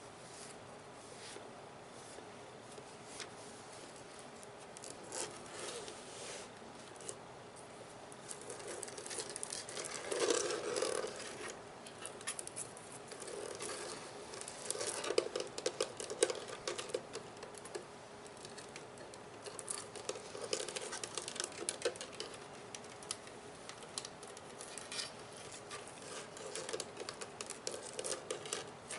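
Fingers and nails tapping, scratching and handling the plastic body of a Nerf gun: irregular clicks and scratchy rubs that come in clusters, loudest about a third of the way in and again around the middle.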